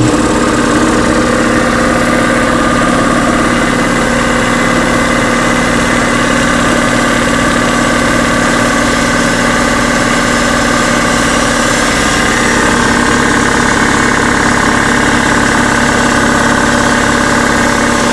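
Craftsman 30-gallon, 2 hp electric air compressor running loud and steady on its first start. Its pump is breaking in with the tank drain valve open.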